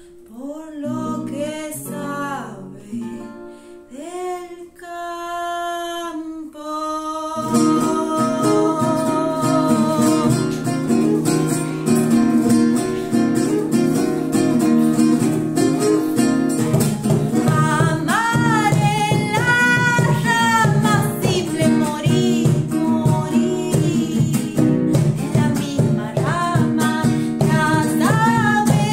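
A woman singing to acoustic guitar. For the first several seconds the guitar plays only sparse low notes under her voice; about seven seconds in it breaks into steady strumming that carries on under the singing.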